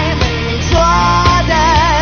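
A singer belting a rock song over band accompaniment with drums, holding long notes that waver in vibrato.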